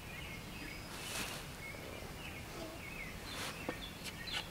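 Birds chirping faintly over a steady outdoor background, with two brief rustles of cloth, about a second in and again past the three-second mark, as the scarf is handled on the target post.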